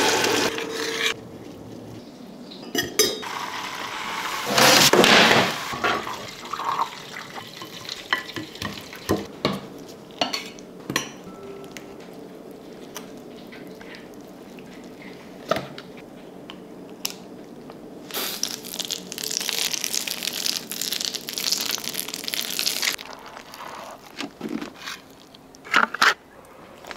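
Kitchen sounds of cooking: a stainless steel saucepan and utensils knocking and clinking while thick tomato sauce is poured and stirred. About two thirds through comes a steady hiss lasting several seconds.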